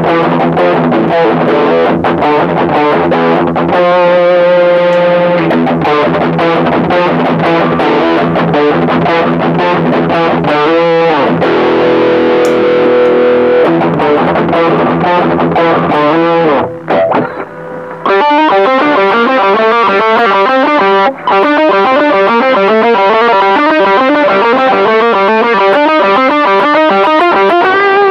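Distorted electric guitar played through a TC Electronic HyperGravity mini compressor that is switched on, which evens out the loudness of the notes. Chords are strummed and let ring at first; after a short break about two-thirds of the way through come fast single-note lead runs.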